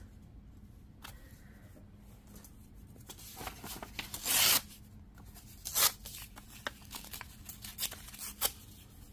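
Printed paper being torn by hand to fussy-tear pieces around images: one longer rip about four seconds in, then several short tears.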